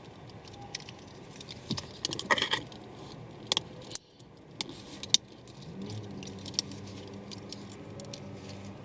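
Plastic clips and the window switch housing clicking and rattling in a string of sharp clicks as the switch is pushed and worked loose from its trim panel.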